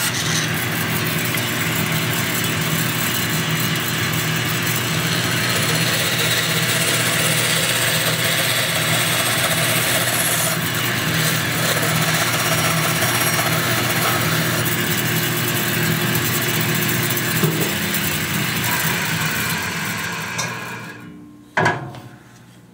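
Bandsaw running and cutting through a wooden spoon blank, a steady whirring hum with the rasp of the blade in the wood. About 20 seconds in the cut ends and the sound falls away, followed by a single knock.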